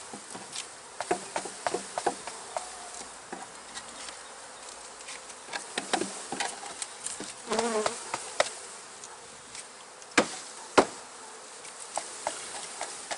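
Honey bees buzzing as a wooden package of bees is bounced and tapped against the hive box to shake them out, with sharp wooden knocks throughout; the two loudest knocks come a little after ten seconds.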